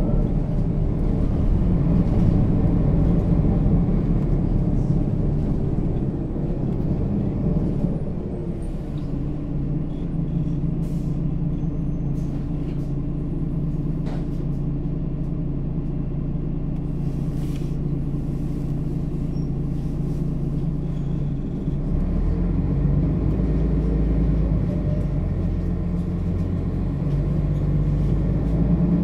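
Mercedes-Benz O 530 G Citaro articulated bus driving, its engine and Voith automatic gearbox running under load. The engine eases off about a quarter of the way in to a lower, steady running, then pulls harder again about three quarters of the way in. A few short high clicks or hisses are heard in the quieter middle stretch.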